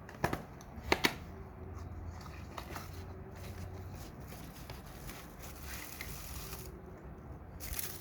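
Hands handling lamps and their plastic packaging: a few sharp plastic clicks about a second in, then rustling and crinkling of the wrapping.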